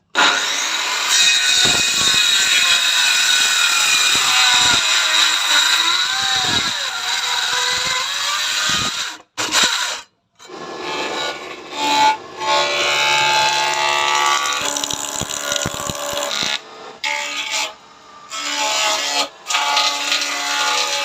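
Power tools working wood, a motor whine under load over cutting noise, breaking off abruptly several times between short clips.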